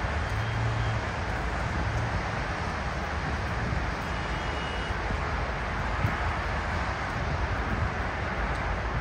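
Steady rumble and hiss of vehicle noise.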